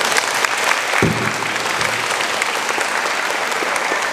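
Audience applauding: many hands clapping in a dense, steady stream, with a low thump about a second in.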